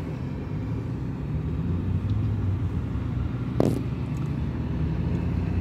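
Steady low hum of an idling car engine, with a single short click about three and a half seconds in.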